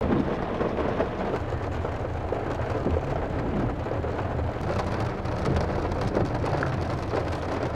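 Rain falling on a car's windshield and roof, heard from inside the cabin, a steady wash of many small drop ticks over a low, even rumble.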